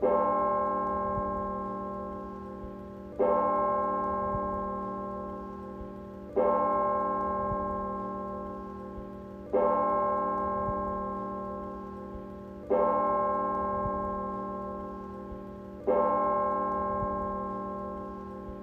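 A single bell tolling slowly: six strokes about three seconds apart, each ringing out and fading before the next.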